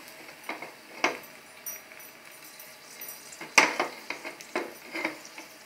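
Dried red chillies frying in a little hot oil in a small saucepan, with faint sizzling and crackling. A few sharp metal clinks and knocks of the pan come through; the loudest is about three and a half seconds in.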